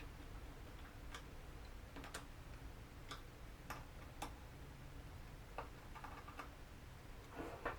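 Faint, irregular light clicks and ticks, about eight over several seconds, from a small jeweler's screwdriver working the screws that hold the drone's plastic cover.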